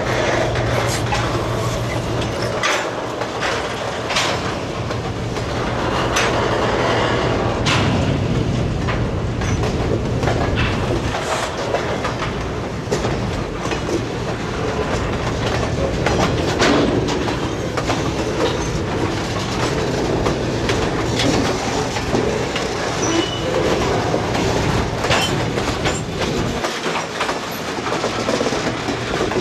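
Freight train rolling past: a diesel switcher locomotive's engine hum for the first couple of seconds, then the clickety-clack and clanking of boxcar and hopper wheels over the rail joints.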